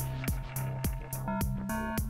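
Electronic background music with a steady, fast drum beat and held synth notes.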